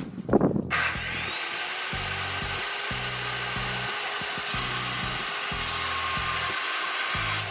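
Corded circular saw starting up about a second in, its motor whine rising as the blade comes up to speed, then running steadily while it cuts through a long, thin wooden board.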